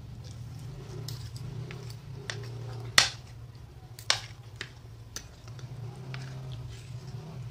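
Metal spoons and forks scraping and clinking against a plate of fried instant noodles, with two sharp clinks about three and four seconds in. A low steady hum runs underneath.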